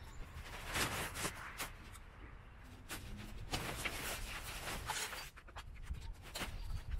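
Nylon rain fly of a Gazelle 4T hub tent rustling as it is dragged off the tent frame, in several swishing bursts.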